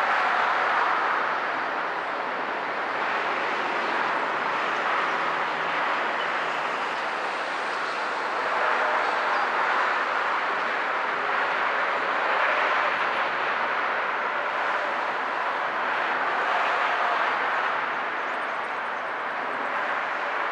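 Steady road-traffic noise from an elevated highway, swelling and easing every few seconds as vehicles pass.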